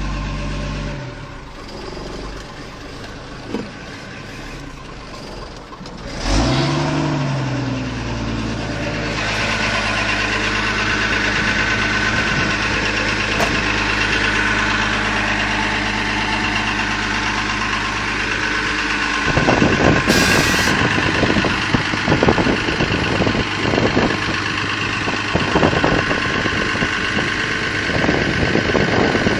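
Old BMC diesel tipper truck's engine catches about six seconds in, rising in pitch, then runs steadily at idle. About twenty seconds in comes one short, sharp hiss of released air: the BMC 'dızzzt' sound. Irregular clattering and knocks run through the last ten seconds.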